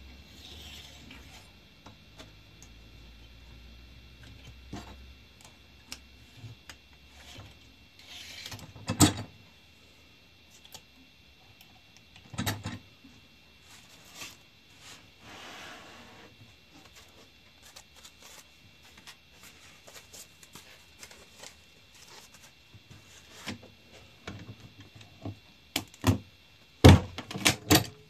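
Metal clicks, clacks and sliding scrapes of an old Bostitch 10-inch carton stapler being handled and loaded with staples, with single sharp metal knocks now and then and a cluster of louder knocks near the end.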